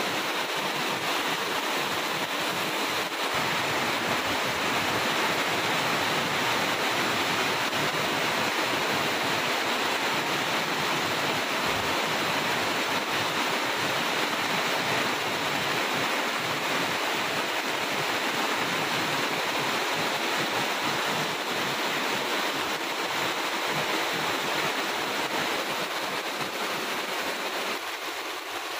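Heavy rain falling steadily on vegetation and wet ground, an even hiss of countless drops, a little quieter near the end.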